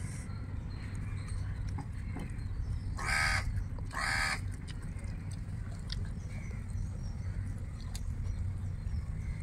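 A crow cawing twice, about a second apart, starting about three seconds in, over a steady low background rumble.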